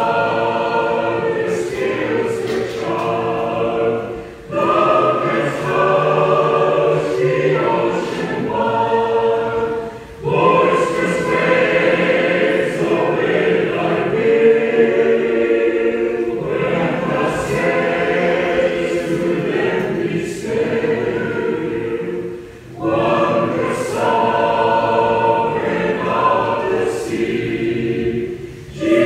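A hymn sung by many voices together over musical accompaniment, in sung lines broken by brief pauses between phrases.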